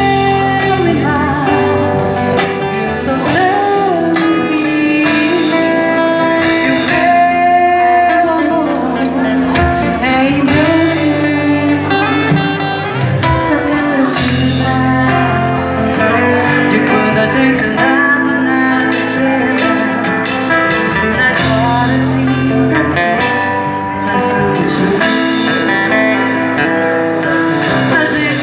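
Live band music: a woman sings into a microphone over strummed acoustic guitar and drums.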